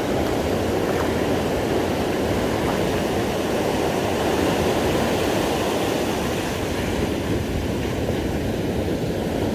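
Steady roar of ocean surf breaking on a sandy beach.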